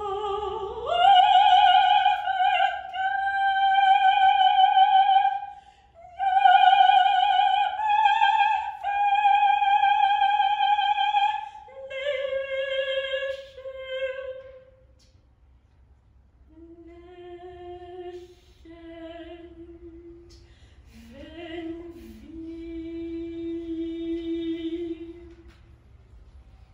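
Unaccompanied solo soprano singing a contemporary art song: long, loud high notes with wide vibrato, then a step down to a lower note. After a short pause come quieter low held notes, with one sliding scoop up into a note near the end.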